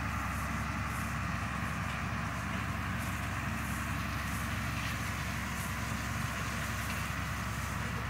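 Farm tractor engine running steadily as it pulls a grain wagon.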